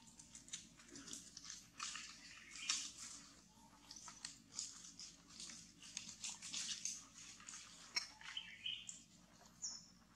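Macaque chewing and crunching food, soft irregular crackles a few times a second. A couple of short high chirps sound near the end.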